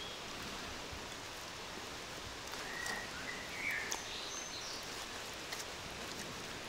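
Steady outdoor background hiss, with a few faint bird chirps near the middle.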